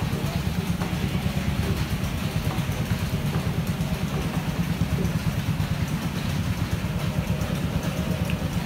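Small motorboat engine running steadily with a rapid chugging beat, heard from on board, with a hiss of wind and water over it.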